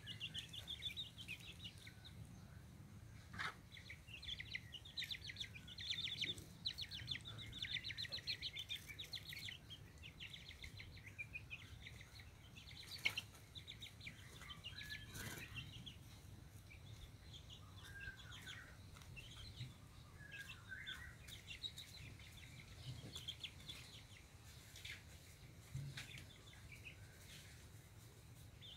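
Young village chickens peeping in quick, high chirping runs as they forage, with a few lower calls and some sharp clicks.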